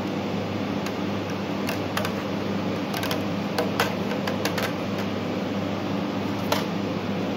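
Steady fan-like hum with a low electrical drone. Over it come a scatter of light, sharp clicks and taps, about a dozen, the loudest about four and six and a half seconds in, as small parts are handled on the LED panel.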